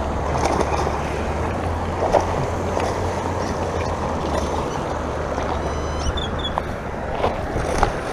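Steady rush of a small waterfall pouring into a pond, with a few splashes from a hooked bass thrashing at the surface.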